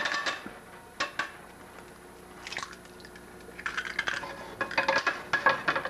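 Liquid bubbling in a metal frying pan with scattered clicks. About four seconds in, an egg is cracked into the pan, bringing a dense run of clinks and knocks with some metallic ringing.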